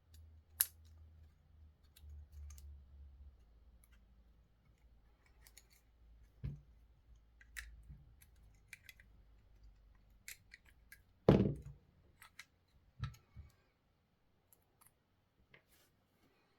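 Plastic clicks and small knocks from handling a Land Rover smart key fob while its battery is changed. The clicks are scattered and sharp, and the loudest is a dull knock about two-thirds of the way through.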